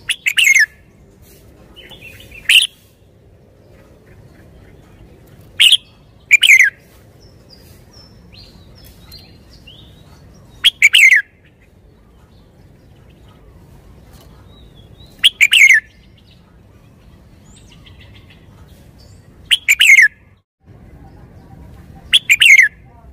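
Red-whiskered bulbul singing: short, loud phrases every few seconds, each sweeping down in pitch, with soft chirps in between.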